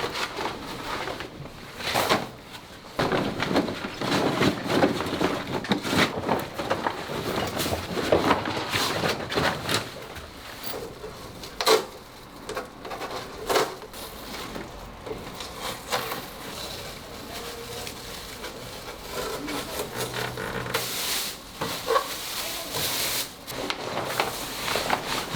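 Hands-on work noise: rubbing and rustling with scattered clicks and knocks, and a short stretch of hiss near the end.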